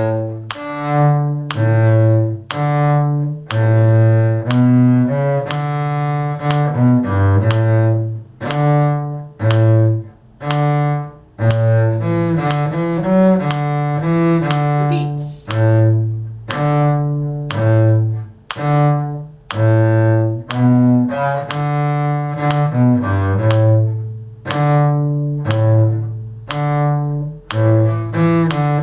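Solo cello playing a bass line in 6/8 time in D major, one bowed note at a time, with short breaks between the notes.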